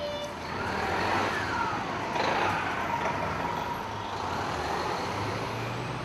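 City street traffic: a bus passing close by with engine and road noise that swells through the first second, a brief loud hiss about two seconds in, then a slow fade.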